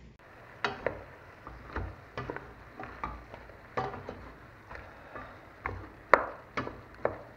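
A wooden spoon stirring chopped raw vegetables in a stainless steel pot, clacking against the pot and the vegetables in irregular sharp knocks, roughly two a second, the loudest about six seconds in.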